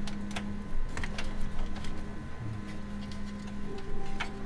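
Scattered small clicks and taps of cables and tweezers being worked inside a PC case, over a steady low electrical hum.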